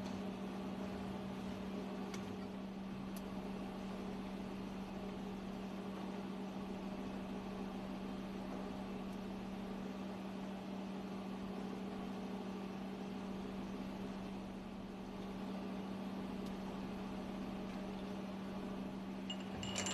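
Steady machinery hum of a ship's engine room: a constant low drone with a faint hiss, unchanging throughout, with a couple of faint ticks.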